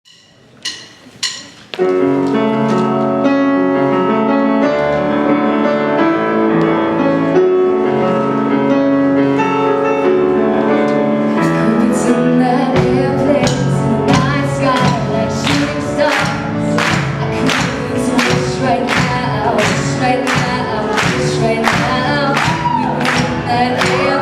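Live pop song performed by a band with singers: two sharp clicks, then sustained chords with singing, and drums join with a steady beat about halfway through.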